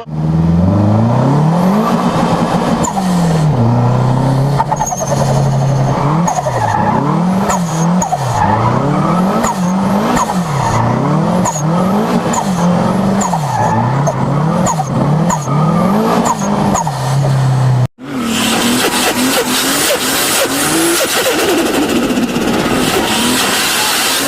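Turbocharged car engine revved up and down over and over, with a short high chirp as each rev falls away, typical of turbo flutter on lift-off. Near the end it cuts to another car running hard, with a loud hiss of tyres skidding.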